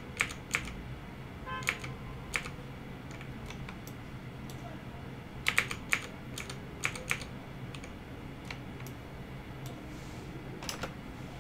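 Computer keyboard keys clicking in short clusters of quick presses, repeated Command-Z undo strokes, with pauses between the clusters, over a faint steady low hum.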